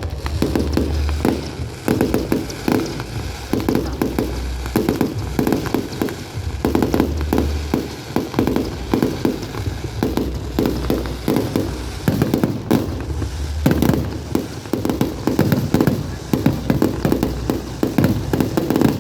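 Fireworks bursting in quick succession: a dense run of sharp bangs and crackles, one after another, over deep booms.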